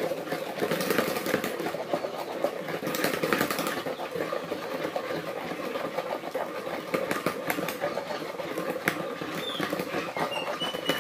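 Cake batter being beaten in a bowl: a steady churning sound with many irregular clicks of the beater against the bowl.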